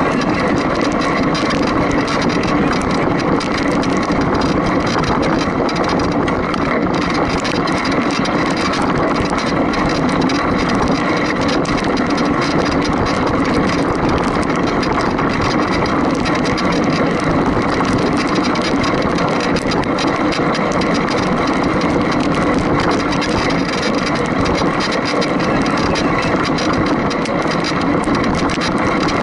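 An engine running steadily at an even speed, with no change in pitch or loudness.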